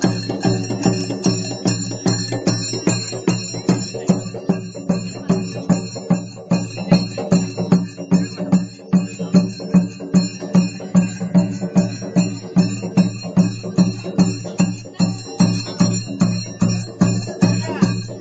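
Music with a fast, steady percussion beat over sustained tones.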